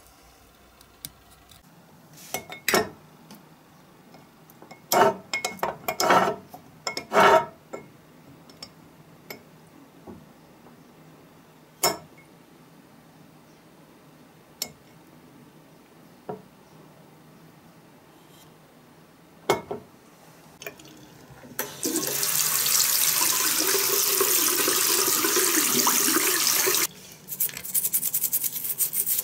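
Several sharp clinks and knocks, then about five seconds of water running hard into a tub, which stops suddenly. A toothbrush then scrubs quickly on a small diecast metal car body under the water, brushing off old paint softened by stripping gel.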